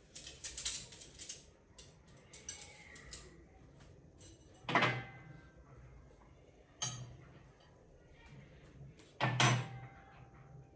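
Tableware being handled and set down on a dining table: some rustling and light clatter, then three separate sharp knocks, each with a brief ringing tail.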